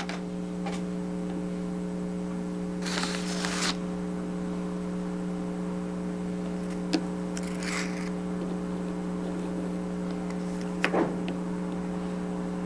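Steady electrical hum, with a few brief rustles and light clicks of small miniature bricks being handled and pressed into place.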